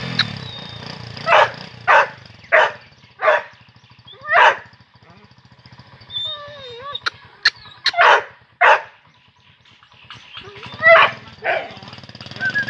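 Waleti Gultair dog barking in irregular volleys of deep single barks, about a dozen in all, with a few sharp clicks in the middle.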